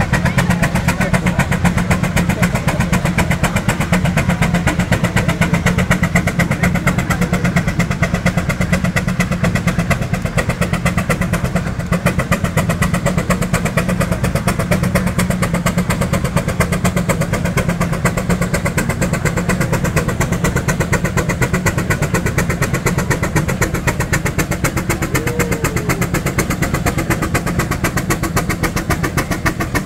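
Steam traction engine working under load pulling a sled: a fast, even chuffing of exhaust beats from the stack, the blast hard enough to throw burning cinders out as sparks.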